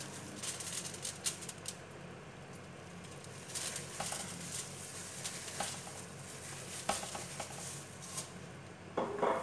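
Scattered small taps and light rustles as a glass bottle and a foil-lined tray are handled with plastic-gloved hands, over a steady low hum. A louder brief clatter comes near the end.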